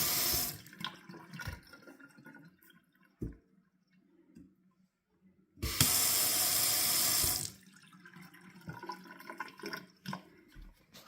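Kitchen tap's water stream splashing into the sink, switched off abruptly by the touch-control solenoid valve about half a second in, then switched on again for under two seconds about six seconds in. Faint knocks come in between.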